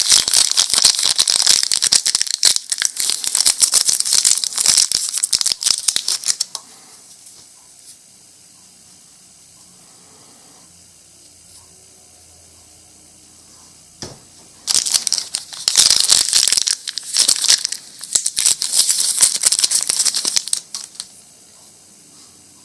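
Pez dispenser packaging crinkling and crackling as it is handled and opened. About six seconds of it, then a quiet pause, then another burst of about six seconds.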